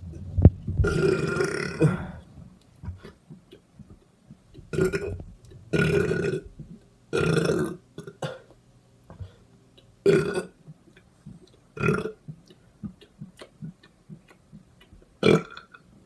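A person belching repeatedly: about seven separate burps, the first and longest lasting over a second, the rest shorter and spaced a second or more apart, with faint clicks between them.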